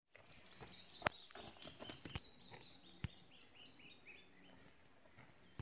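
A bird singing a long run of short chirping notes that step steadily down in pitch. Two sharp clicks come about one and three seconds in.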